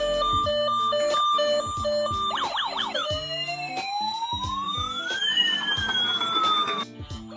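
Emergency siren sounds over background music. A steady alternating siren tone changes a little over two seconds in to quick warbling yelps, then to a slow rising and falling wail that cuts off near the end.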